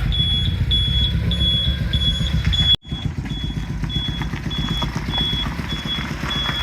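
Engine running steadily under a high electronic beep that repeats about twice a second, like a vehicle's reversing alarm; the sound drops out for an instant about three seconds in.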